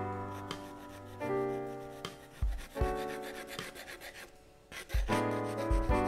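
Slow background music of held chords that fade away, a new chord coming in about every one and a half to two seconds, over the soft rasp of a graphite pencil shading on paper.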